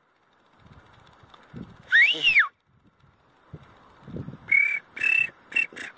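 High whistled notes: one whistle rising and then falling about two seconds in, then from about four and a half seconds a quick run of short whistled notes, several a second. Low rumbling noise sits underneath.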